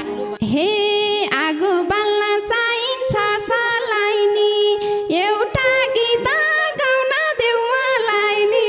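A woman singing a Nepali dohori verse, with long held notes and ornamented slides between them, over very sparse accompaniment with only a few light strokes.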